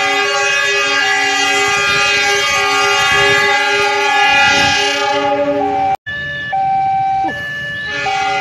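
Diesel locomotive air horn sounding a long, sustained chord of several notes as the train bears down on a level crossing with a bus still on the tracks, a warning blast. About six seconds in the sound drops out suddenly, then steady horn tones return, changing pitch every second or so.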